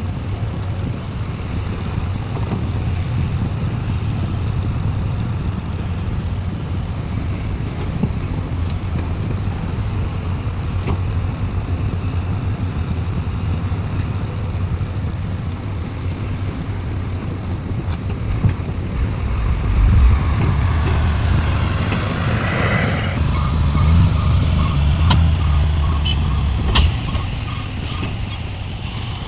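Heavy diesel machinery running steadily at a mine site: excavator and dump truck engines. About two thirds of the way in there is a brief hiss of air, followed by a few seconds of evenly repeated short beeps.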